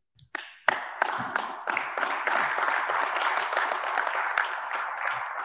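Applause from a small audience of many people clapping. It starts about half a second in and keeps up steadily.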